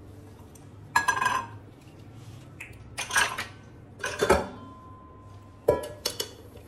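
Kitchen canisters and their lids clinking and knocking against each other and the granite countertop as they are handled and wiped dry: several separate clinks, one left ringing for about a second.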